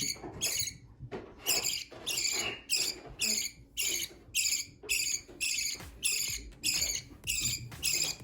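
Two-week-old baby bird begging while being hand-fed, giving harsh, high-pitched calls about twice a second in a steady run.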